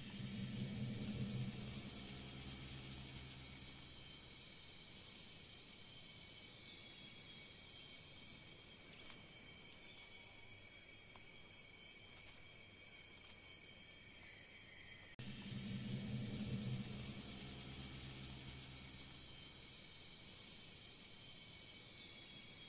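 Steady chorus of crickets chirring in high, thin tones. Twice, a low hum rises over it for about three seconds.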